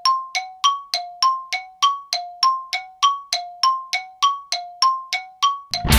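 A bell struck rapidly in an even rhythm, about three strikes a second, alternating between a lower and a higher note, each strike ringing briefly. Loud rock music cuts in just before the end.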